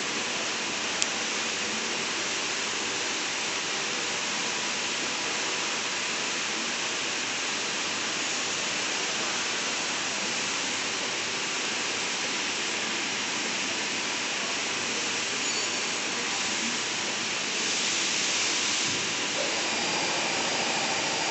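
Slitting machine running, its rotary knife shaft cutting material into narrow 1.7 mm strips: a steady, even hiss-like machine noise, with a short click about a second in and a slightly louder stretch near the end.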